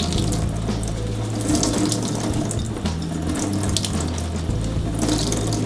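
Water wrung from cooked riced cauliflower in a kitchen towel, streaming and splashing into a stainless steel sink as the towel is twisted and squeezed.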